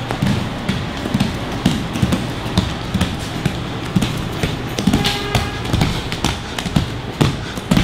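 Bare feet slapping and thudding on a foam gym mat in quick, uneven steps of agility-ladder footwork, a few strikes a second, over background music.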